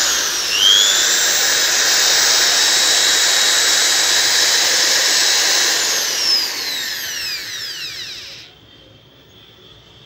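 Xtrim corded electric drill's motor running at speed with a high whine. Its speed dips and picks up again about half a second in. The trigger is let go about six seconds in and the motor winds down to a stop some two seconds later. The newly fitted trigger speed-control switch is working properly.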